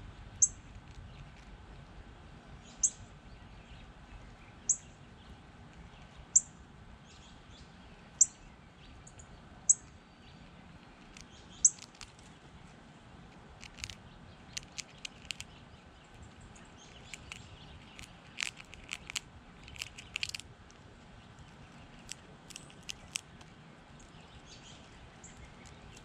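A bird repeating a single short, high chirp about every two seconds, seven times. About halfway through, a flurry of quick sharp clicks and chips follows, with a few more near the end.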